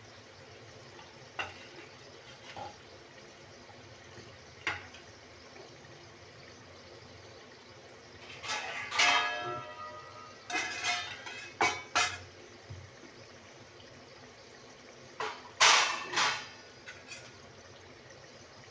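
Somas pastries deep-frying in oil in a stainless steel kadai on a low flame: a steady soft sizzle of bubbling oil as they crisp up. From about eight to sixteen seconds in come several loud sharp knocks and clatters, one near the start with a short pitched ring.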